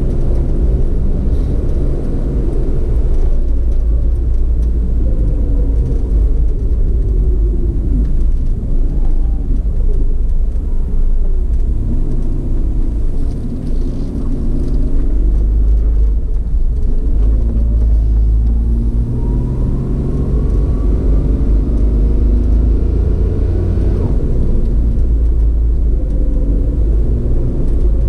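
A motor vehicle on the move, its engine note rising and falling as it speeds up and slows, over a heavy low rumble. A long climb in pitch comes about two-thirds of the way through.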